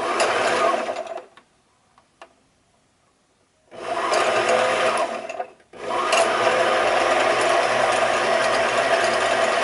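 Janome 11706 sewing machine's motor whirring as it spins the bobbin winder, with the hand wheel disengaged so only the bobbin turns. It starts and stops with the foot pedal: a short run, a pause of over two seconds, about two seconds of running, a brief drop-out, then a longer steady run.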